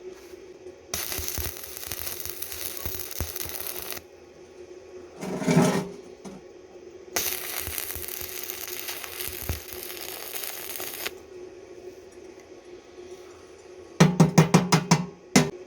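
Two bursts of electric arc welding, each a few seconds of steady crackling hiss, with a heavier knock in between. Near the end comes a quick run of about seven sharp hammer strikes on metal.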